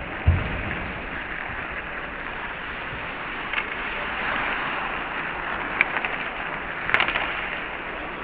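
Ice hockey play heard from the bench: a steady hiss of skates on the ice and the rink's air, with a dull knock just after the start and a few sharp clacks of sticks and puck, a small cluster of them about seven seconds in.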